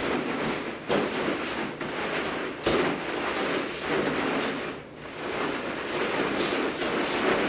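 Bare feet shuffling on a foam mat and gi fabric rustling as two people grapple, with two sharp thumps about one and three seconds in.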